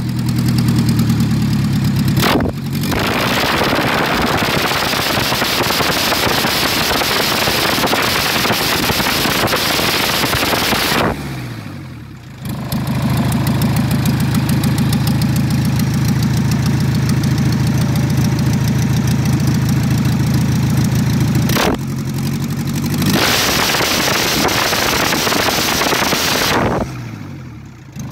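Volkswagen TDI Pumpe-Düse diesel engine idling, then revved up and held high twice for several seconds each, falling back to idle each time. A sharp click comes shortly before each rev-up.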